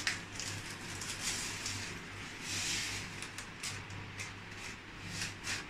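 Mustard seeds sizzling in hot oil in a kadai, with scattered small pops as the seeds begin to splutter, the sign that the oil is hot enough for tempering.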